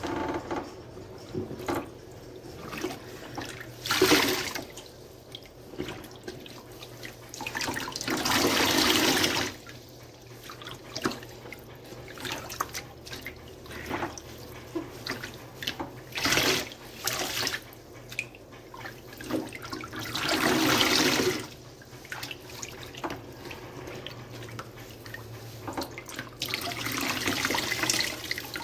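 Sponge soaked in dish soap mix squeezed by hand: sudsy water gushes out in about five bursts, the longer ones lasting a second or two, with quieter wet squishing of the suds between squeezes.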